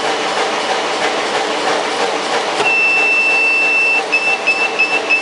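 Over a steady background hiss, an electronic buzzer on the acrylic bending machine's controller sounds a continuous high beep about two and a half seconds in. After about a second and a half it turns into short repeated beeps, about three a second, typical of a timer or controller alarm going off.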